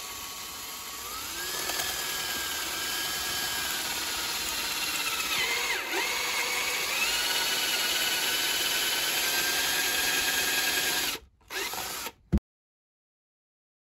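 Ryobi cordless drill spinning a step drill bit through a switch bracket, enlarging its 28 mm hole to 33 mm. The motor whine rises in pitch about a second in, dips briefly midway, then stops near the end after a short final run, ending with a click.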